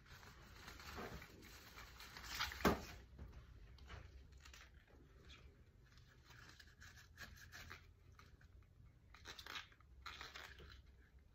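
Soft rustling and crinkling of flower stems, petals and leaves as a pink tulip stem is worked into a vase arrangement. There is one sharp snap about two and a half seconds in.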